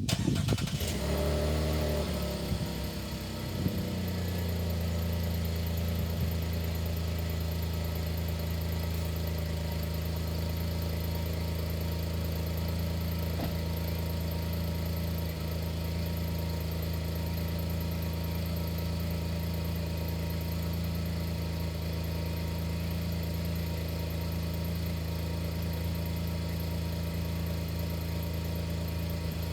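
A motor vehicle's engine starts, its pitch falling over the first few seconds as it settles, then idles steadily.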